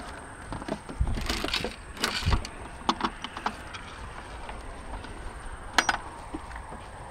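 A coin-operated gumball-style machine filled with grain being worked by hand, its crank and mechanism giving a series of clicks, knocks and rattles. A sharp click comes near the end.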